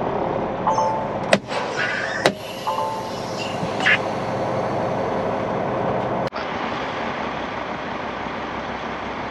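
Cummins X15 diesel in a Peterbilt truck idling steadily, heard from inside the stationary cab, with two sharp clicks about a second and a half and two seconds in.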